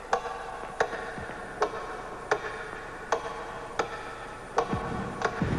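Steady clock-like ticking, about one tick every three quarters of a second, over a held ringing tone; a low rumble swells in near the end.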